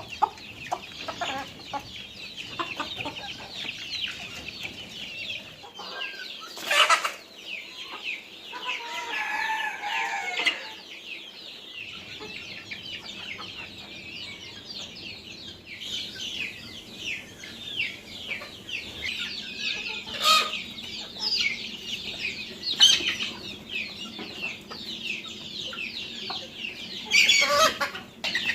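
A flock of desi (native) chickens calling: many high, falling chirps overlap without a break. Louder, sharper calls stand out about 7 and 20 seconds in and near the end, and a longer pitched call comes around 9 to 10 seconds.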